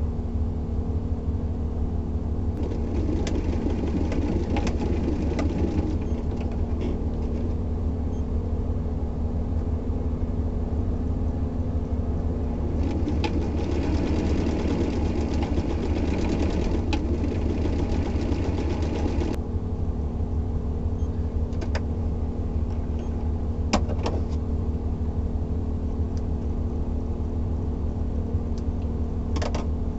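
Old electric sewing machine stitching in two runs of fast, even ticking: one a few seconds in, and a longer one of about seven seconds from about 13 seconds in. A steady low hum sits underneath, and a few sharp clicks come later.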